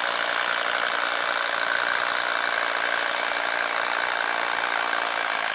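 Bosch Freak 18V impact driver hammering steadily as it drives a 1-inch wood auger bit into a wooden post.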